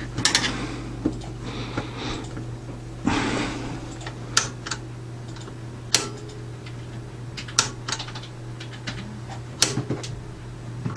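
Front-panel push-button switch of a Radiotehnika U-101 stereo amplifier being pressed again and again, a string of sharp separate clicks, to check that the refitted button works. Two short rustling scrapes of handling come at the start and about three seconds in, over a steady low hum.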